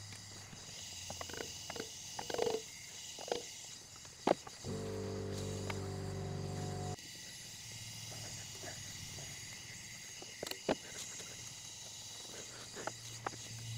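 Scattered light clicks and taps of hand tools working among the valve springs and rocker arms of an open EN07 cylinder head. Near the middle a steady low buzz sounds for a couple of seconds and cuts off suddenly.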